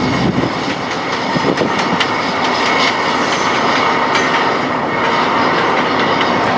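2TE10L diesel locomotive hauling a freight train at speed: steady engine and running noise, with irregular clicks of wheels over rail joints.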